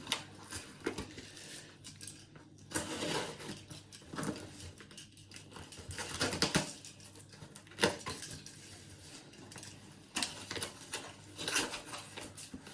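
A parcel being unwrapped by hand: gaffer tape and packaging rustling and tearing in uneven stretches, with scattered metallic clinks and knocks from the padlocks inside.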